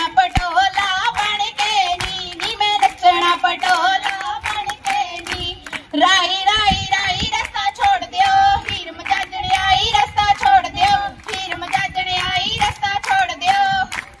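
Girls singing Punjabi boliyan to steady rhythmic handclapping, the accompaniment to a giddha dance.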